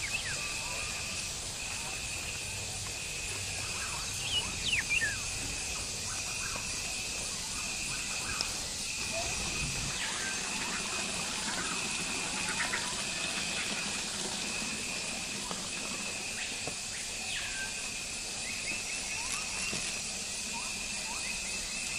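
Garden ambience: an insect's high buzz repeating in long pulses with short gaps, and scattered short bird chirps and whistles over it.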